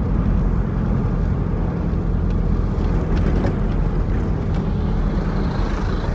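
Car engine running and tyre and road noise heard from inside the cabin: a steady low hum, with a few faint clicks.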